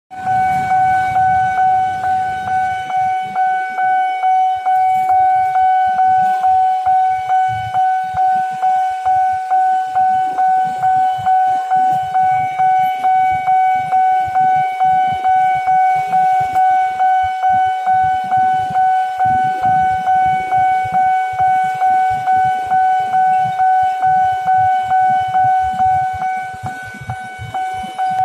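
Railway level-crossing warning bell ringing while the barriers are down: one steady high tone repeating in quick, even pulses, about two and a half a second.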